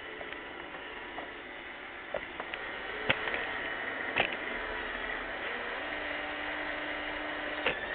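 Roomba 600-series robot vacuum running: a steady motor whir with a few sharp clicks and knocks, growing a little louder about three seconds in.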